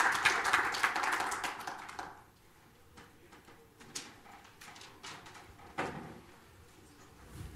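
Audience applause dying away over the first two seconds. After it comes a quiet room with a few scattered knocks and clicks.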